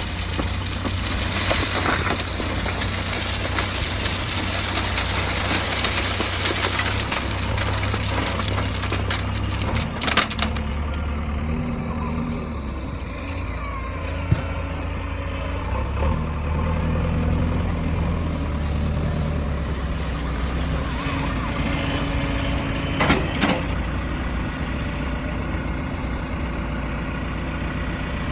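Diesel engine of a backhoe loader running and working, its pitch shifting as it takes load, with rough clattering from stone being loaded over the first ten seconds and a few sharp knocks about ten, fourteen and twenty-three seconds in.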